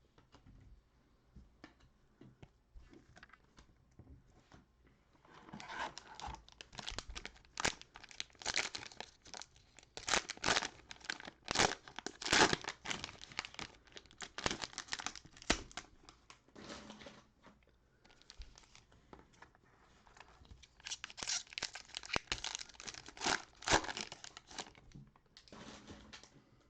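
Cellophane wrappers of trading card cello packs being torn open and crinkled, in two long stretches of dense crackling separated by a short lull, after a few seconds of faint clicks as the packs and cards are handled.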